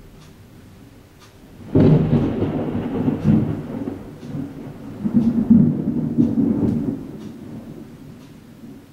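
Thunder: a sudden clap about two seconds in that rolls into a deep rumble, swells again around five to six seconds, then dies away.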